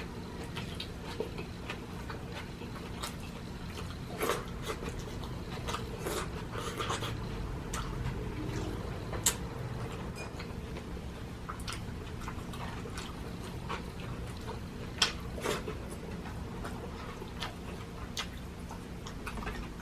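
Close-up eating sounds: a person chewing food, with scattered wet clicks and smacks, over a steady low hum.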